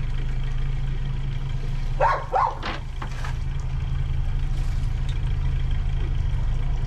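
Boat engine running steadily with a low hum, with two brief louder sounds about two seconds in.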